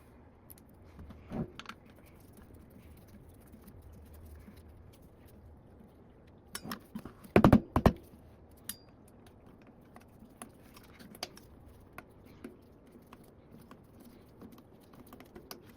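Small metal clicks and clinks of a screw and hand tool being worked into an e-bike hub motor, scattered and irregular, with a louder cluster of knocks about halfway through.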